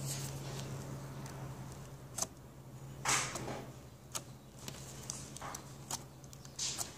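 Scattered light clicks and brief rustles from a handheld phone being moved and handled, over a faint steady low hum.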